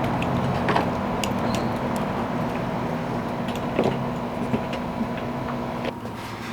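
A small engine running steadily, slowly getting quieter, with a few sharp clicks on top; the engine sound drops away shortly before the end.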